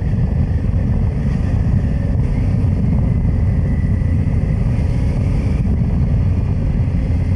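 Honda Transalp's two-cylinder engine running steadily while the motorcycle is under way, with wind buffeting the microphone.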